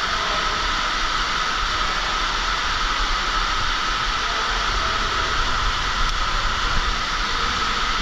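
Underground waterfall: a steady, even rush of falling water.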